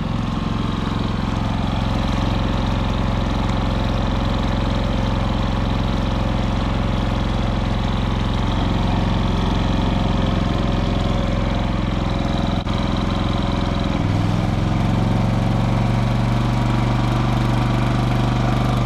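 Predator 5000 inverter generator's engine running steadily on gasoline. About three-quarters of the way through it steps up to a higher, stronger note as it takes on a small electrical load, with a single brief click shortly before.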